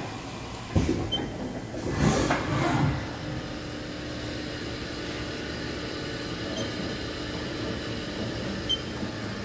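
Sliding enclosure door of a Haas VF-4SS vertical machining center: a sharp click about a second in, then the door sliding open in a brief rushing rumble. A steady hum carries on after it.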